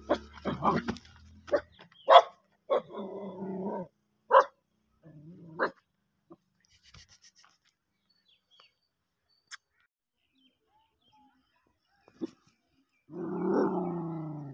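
Small white dog barking: a string of short sharp barks mixed with a couple of longer drawn-out calls. It then falls quiet for several seconds, and one longer drawn-out call comes near the end.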